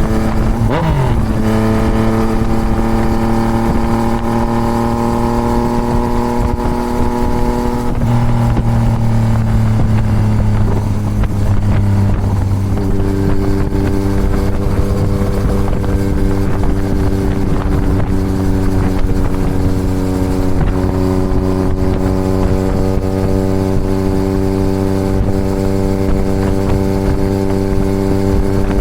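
Yamaha MT-09's three-cylinder engine through a full Toce exhaust, running at steady riding revs. Its pitch climbs slowly over the first several seconds, with one quick rise and fall about a second in. It drops to a lower note around eight seconds in and runs steadily after that.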